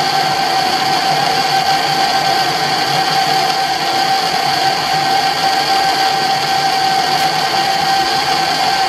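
Colchester Bantam lathe running steadily, with a constant high tone over its mechanical noise, during a boring operation on the bore.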